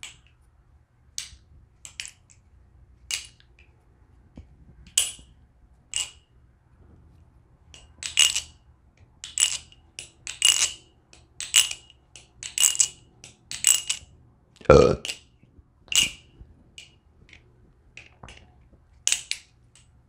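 Aluminium balisong trainer being flipped: a string of sharp metallic clicks as the handles swing open and shut, about one a second and closer together in the middle. A single duller thump about fifteen seconds in is the loudest sound.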